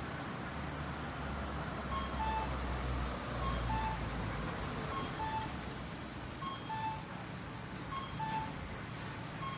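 Traffic light's pedestrian crossing signal beeping: a short higher tone followed by a longer lower tone, the pair repeating about every one and a half seconds from about two seconds in. Traffic rumbles underneath, with a vehicle passing in the first few seconds.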